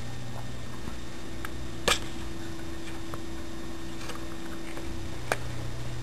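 Steady low electrical hum and hiss on a handheld camcorder's recording, with a few light clicks of handling noise. The sharpest click comes about two seconds in, and a smaller one near the end.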